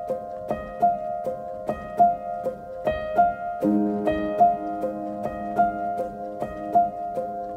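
Background instrumental music: a light tune of short, evenly spaced notes, with lower held notes joining a little past halfway.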